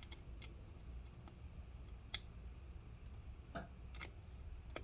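Light, irregular clicks and ticks of a small precision screwdriver and metal parts as a tiny screw is set into the laptop's metal SSD bracket, about seven clicks with the sharpest about two seconds in.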